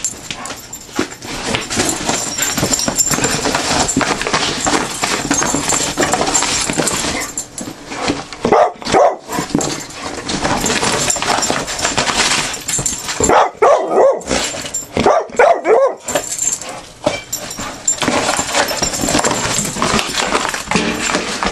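Two dogs tearing and chewing a cardboard box, with steady ripping and rustling of cardboard. Bursts of dog vocalising, barks and whines, come about eight seconds in and again from about thirteen to sixteen seconds in.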